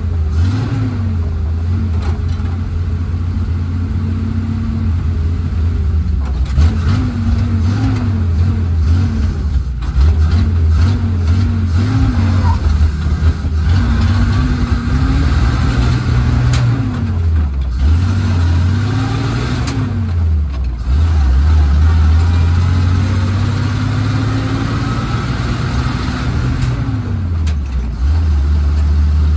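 1948 Dodge Power Wagon's flathead six-cylinder engine running under load while driving, heard from inside the cab, its note rising and falling several times as the truck accelerates and shifts gears.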